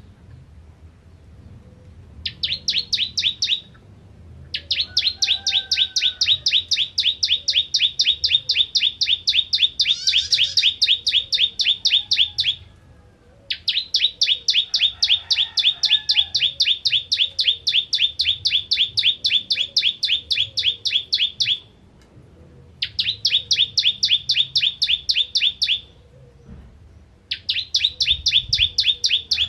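A caged ciblek kristal, a prinia, singing in long trains of rapid, sharp, evenly repeated notes: the rapid-fire 'nembak' delivery of a bird in full song. There are five runs with short pauses between them, the longest about eight seconds. Fainter chirps from other birds sound underneath.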